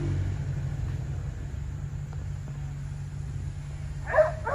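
Jeep Wrangler engine running with a steady low rumble as the Jeep crawls over rough ground. A dog yips twice near the end.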